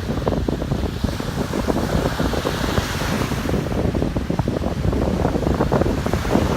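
Ocean surf washing on a beach, with wind buffeting the microphone in heavy low rumbling gusts. A wave's hiss swells and fades in the middle.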